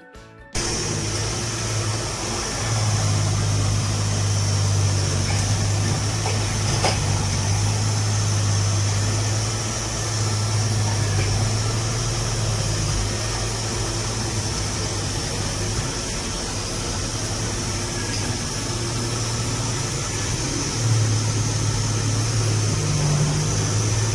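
Xiaomi robot vacuum-mop running: a steady motor and fan whir with a low hum that swells and fades every few seconds.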